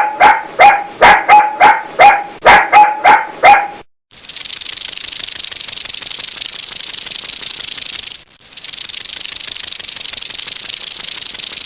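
A dog barking rapidly, about three barks a second, for the first four seconds. Then it cuts to a steady high hiss in two long stretches with a brief break between them.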